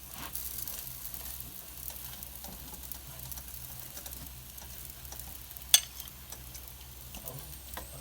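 Paratha spread with beaten egg sizzling on a hot tawa, a steady frying hiss. A single sharp tap rings out a little past the middle.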